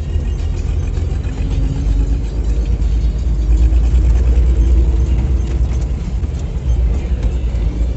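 Toyota Land Cruiser hardtop jeep driving over a rough dirt track, heard from inside the cabin: the engine runs under a heavy, steady low rumble of the body and tyres, which grows louder in the middle.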